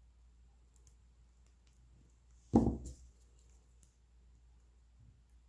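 Small jewellery hand tools handled on copper wire: a few faint clicks, then one sharp knock about two and a half seconds in that dies away quickly.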